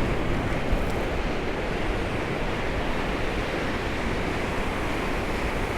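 Steady wash of sea waves on the shore, mixed with wind buffeting the microphone.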